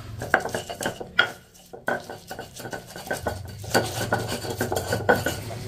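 Stone pestle grinding and scraping spice paste in a stone mortar (Indonesian cobek and ulekan): a run of irregular knocks and rubs, with a short lull about a second and a half in.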